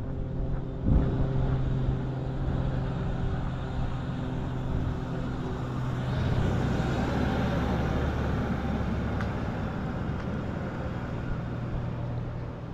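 Steady hum of a nearby car engine, then an SUV drives through the intersection ahead about six seconds in, its engine and tyre noise swelling and then easing. There is a single knock about a second in.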